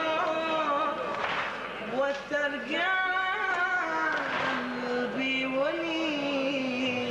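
A male reciter chanting a Shia Muharram lament (latmiya) solo into a handheld microphone, in long held notes that waver and turn in ornamented runs.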